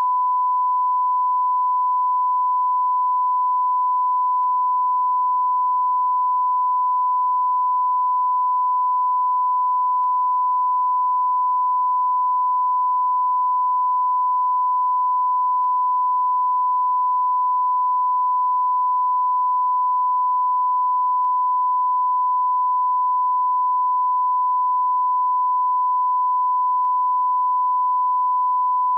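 Beep sound effect: a single steady high-pitched tone held without a break or change in pitch or loudness.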